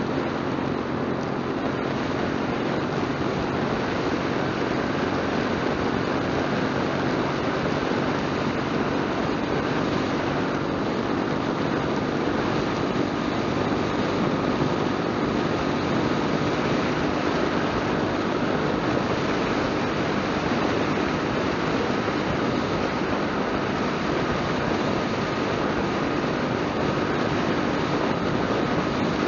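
Motorcycle cruising at a steady highway speed: an even engine drone under a constant rush of wind noise over the fairing-mounted microphone.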